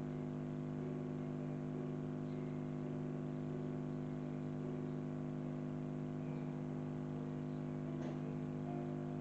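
Piano playing a short passage over and over above a steady low hum; about eight seconds in a single sharp knock cuts across it, which the player takes for someone deliberately banging on the building.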